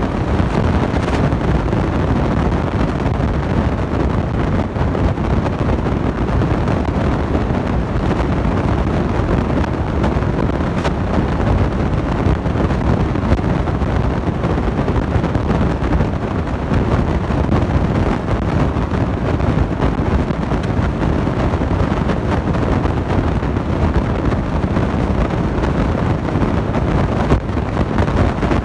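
Refrigeration compressors of commercial glass-door beverage coolers running: a steady, loud rushing hum with no distinct tone.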